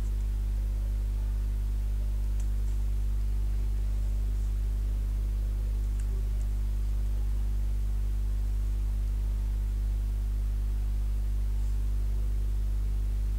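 Steady low electrical hum with a stack of even overtones, unchanging in pitch and level, with a few faint clicks.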